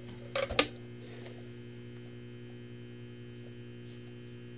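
Steady electrical hum, with two quick sharp clicks about half a second in as the wooden mantel clock is handled.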